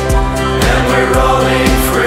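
Background music with a steady beat, an edited soundtrack laid over the footage.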